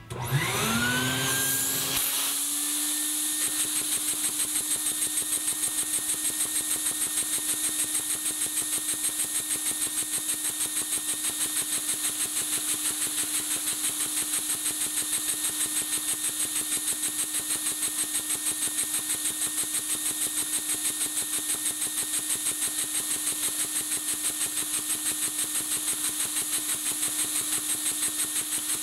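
A vacuum cleaner spins up with a rising whine over the first couple of seconds, then holds a steady whine and hiss. Under it, a LEGO vacuum engine with angled valves and a single overhead cam runs under the vacuum's suction, making a rapid, even pulsing.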